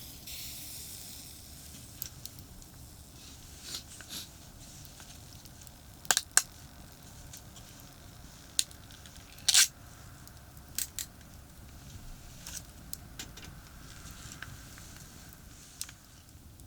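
About a dozen sharp clicks and taps at irregular intervals, the loudest pair near the middle, over a steady low rumble of distant expressway traffic.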